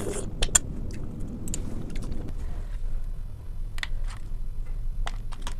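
Eating sounds: chewing and mouth smacking with several short, sharp clicks, over a steady low background rumble.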